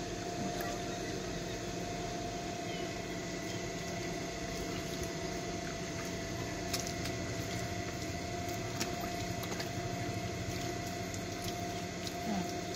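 Water running from a water tank's tap and splashing onto a wet concrete floor as hands are washed under it. A steady hum runs underneath, with a few faint clicks.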